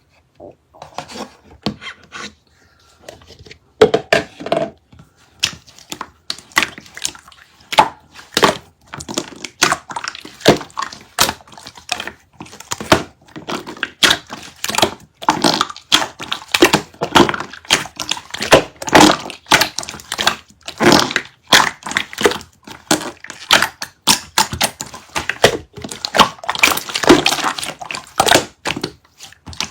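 Slime being squeezed and pressed by hand, with irregular sticky pops, clicks and crackles several times a second.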